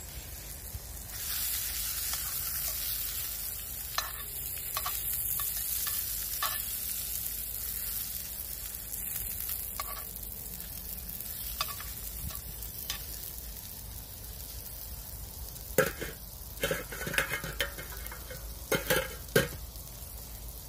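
Hot dog sausages sizzling in a small frying pan on campfire embers, the sizzle growing louder about a second in. Light clicks of metal tongs turning the sausages in the pan, then several louder metal clatters near the end as the tongs are set down on an enamel plate.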